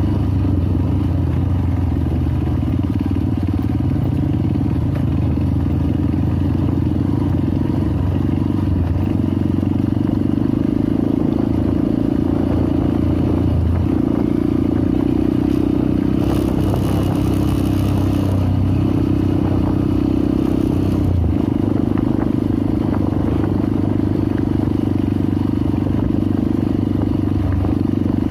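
Dirt bike engine running under way on a dirt trail, its pitch dipping briefly every few seconds as the throttle eases and picks up again, with rattling from the bike. A burst of hiss rises over it about sixteen seconds in and lasts a couple of seconds.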